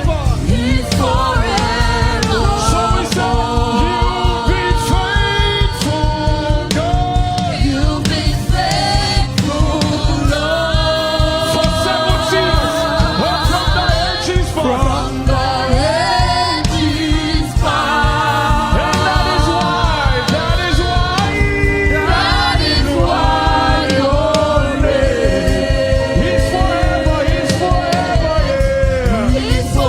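Live gospel praise music: a choir singing with instrumental accompaniment and a steady beat.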